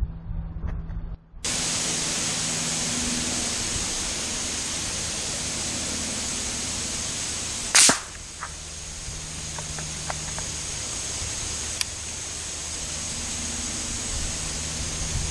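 A single shot from a Hatsan Escort .22 LR bolt-action rifle, one sharp crack about eight seconds in, over a steady hiss.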